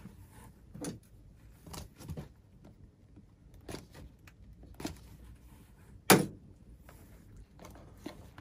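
Handling noises as a small cardboard product box is lifted out of bubble wrap and turned in the hands: a handful of short, separate knocks and rustles, the loudest a sharp knock about six seconds in.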